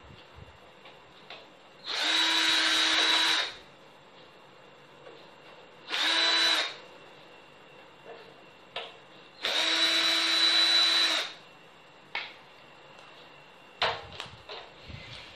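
Electric drill-driver running in three short bursts with a steady whine, taking apart a power amplifier's case. A few light clicks and knocks follow, the loudest near the end.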